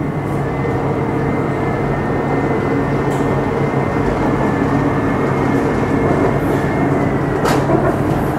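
BTS Skytrain electric car running along the elevated track, heard from inside the car: steady wheel-on-rail noise with a steady motor hum and a thin high whine, and a brief sharp click near the end.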